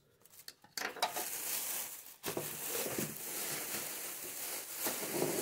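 Thin plastic shopping bag rustling and crinkling as a hand rummages inside it, starting about a second in and continuing steadily.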